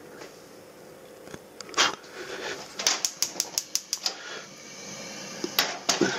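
Gas stove burner's igniter clicking rapidly, about six clicks a second for about a second, until the burner lights. Metal knocks as an old kettle is handled and set down on the burner grate.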